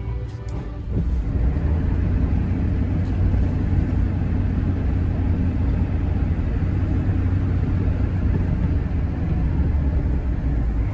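A road vehicle driving, with steady engine and road rumble. The rumble grows louder about a second in.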